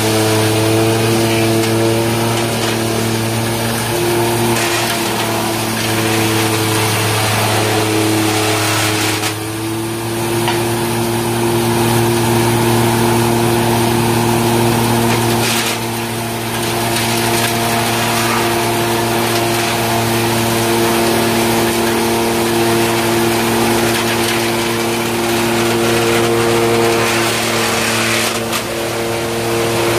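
Belt-driven wood sawdust machine (wood crusher) running under load and grinding wood into sawdust. A loud steady hum and whine sits over a harsh rushing noise that dips briefly a few times.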